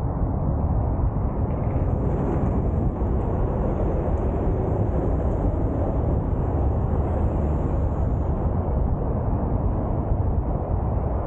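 Wind buffeting the microphones of a 360 camera on a moving bicycle: a steady, loud, low rumble.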